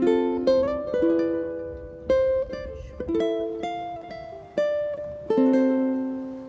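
Solo ukulele instrumental: plucked melody notes and chords, each ringing out and fading before the next is picked.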